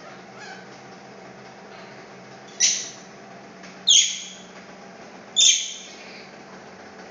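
Baby monkey crying out three times, about a second and a half apart, in short high-pitched cries that start sharply and trail off, over a steady background hum.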